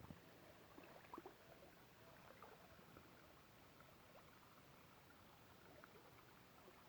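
Near silence: a faint steady hiss, with a few small ticks in the first few seconds.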